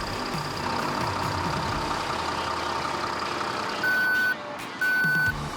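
Cartoon rescue-truck sound effects: a steady engine hum, then an electronic warning beep sounding twice near the end, about a second apart, like a truck's reversing alarm.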